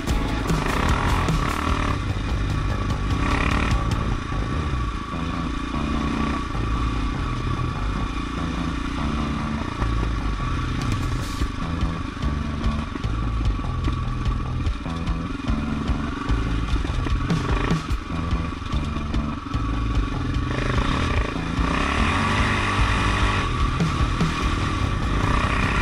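Off-road motorcycle engine running under riding load, its note rising and falling with the throttle.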